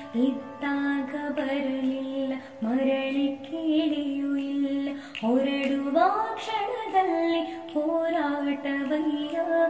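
A woman singing a slow Kannada song, holding long notes with glides between them; her voice rises in pitch about six seconds in.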